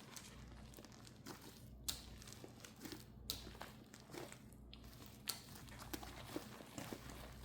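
Faint handling noises: a few scattered sharp clicks or taps among light crinkling, over a low steady hum.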